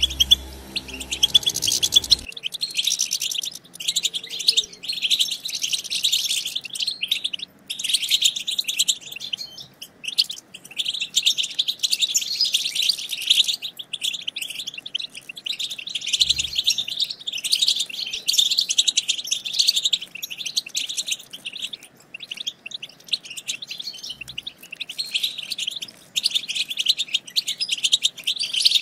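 European goldfinch excited chattering (the 'batbata' call): a fast, dense run of high twittering chirps and trills with short breaks. A low steady hum underneath stops about two seconds in.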